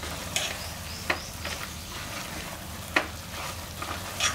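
A spoon stirring goat intestine pieces and chilli powder frying in a pressure cooker pot: a steady sizzle with several sharp clicks and scrapes of the spoon against the pot.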